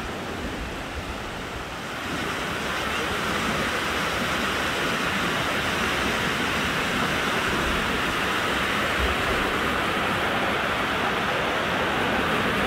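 Ocean surf breaking on a sandy beach, a steady rushing wash with wind on the microphone, growing louder about two seconds in.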